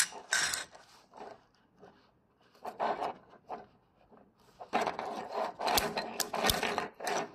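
Hands handling and flexing plastic, giving irregular rustling and rubbing that grows busier in the last couple of seconds, with two sharp clicks near the end.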